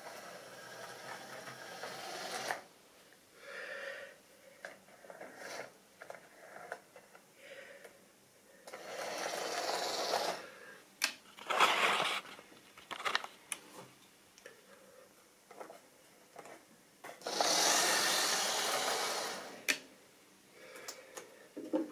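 Small electric motor of model railway locomotives whirring in short bursts of one to two seconds, four times, with scattered clicks and knocks of plastic models being handled on the track between them.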